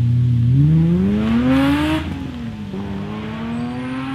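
Rally car engine launching from the start: held at steady revs, then revving up hard through first gear, with a hiss of tyres on the wet road. About two seconds in, the revs drop at a gear change, then climb again in the next gear.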